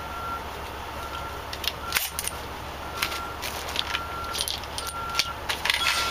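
Clicks, knocks and rattles of tools and gear being handled and stowed, with a reversing beeper sounding about once a second behind them and a steady low hum underneath.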